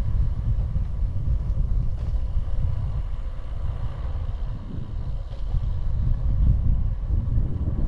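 Wind buffeting the microphone on a bicycle speeding downhill, a loud low rumble that swells and dips.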